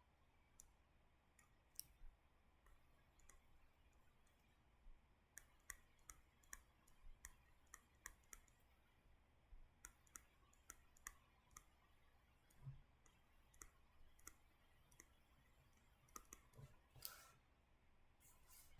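Faint, irregular clicks over near silence, a few a second with gaps, like input clicks while drawing on a computer, with one slightly longer rustle near the end.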